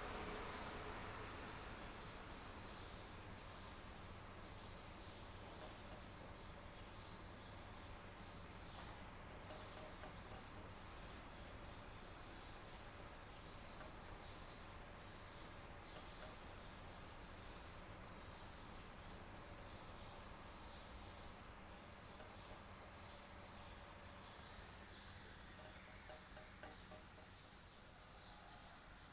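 Electric fan running steadily: an even low rushing with a constant high-pitched whine or trill above it.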